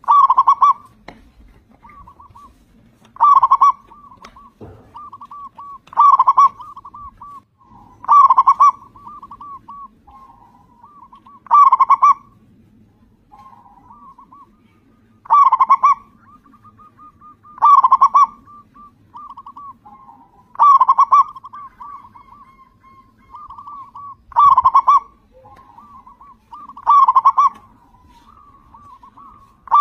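Zebra dove (perkutut) singing: a loud cooing phrase repeated about every three seconds, with softer short coos between the phrases.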